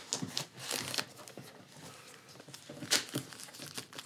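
Plastic wrapping crinkling and tearing as it is pulled off a package by hand, in irregular crackles, loudest about three seconds in.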